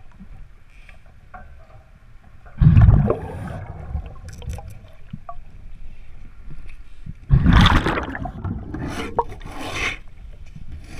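Scuba diver's breathing heard underwater: two loud gushes of exhaled bubbles from the regulator, about five seconds apart, with fainter ticks and rustling between.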